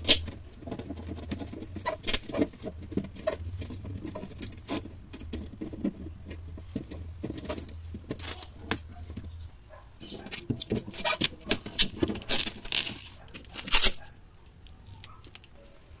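Clear plastic refrigerator door bin being handled: a string of light plastic clicks and rattles as it is gripped and shifted in its slot, busiest and loudest near the end.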